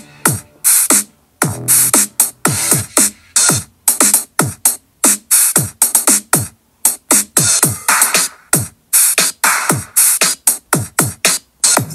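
Instrumental nu-disco synthpop music made with Remix Live on an iPad Pro. A steady drum-machine beat of deep kick drums and sharp high hits plays under synthesizer, with no vocals.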